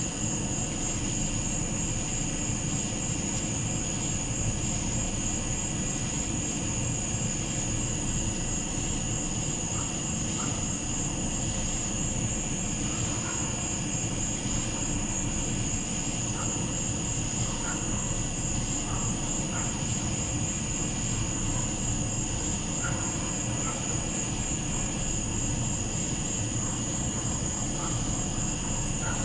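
Night insect chorus: a steady, finely pulsing high trill that runs on unbroken, over a low rumble, with faint short chirps in the middle range from about a third of the way in.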